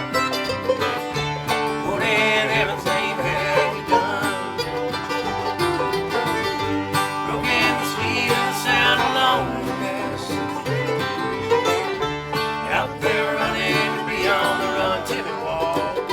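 Acoustic string band playing a bluegrass-style tune, with banjo and guitar picking and a wavering melody line coming in and out over them.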